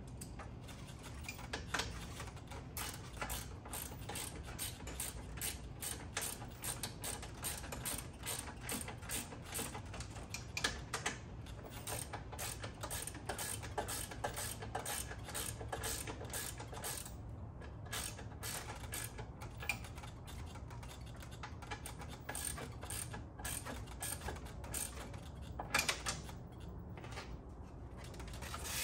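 Hand ratchet wrench clicking in quick runs, with short pauses between runs.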